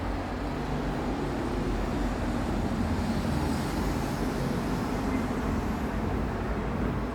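Steady rumble and hiss of city road traffic, with no single vehicle standing out.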